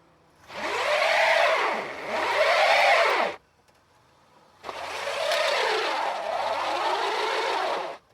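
Two car tyre skids, screeching as the tyres slide on the road. The first lasts about three seconds and its pitch rises and falls twice; after a short pause the second, slightly longer and steadier, cuts off suddenly near the end.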